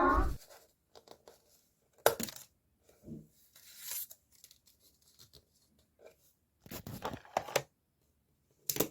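Paper being handled and folded: a few short rustles and crinkles with quiet gaps between them, and a small cluster of them about seven seconds in.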